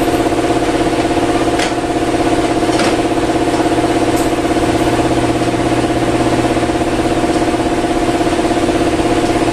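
A machine motor running steadily with a fast, pulsing hum, unchanging throughout, with a few faint clicks over it.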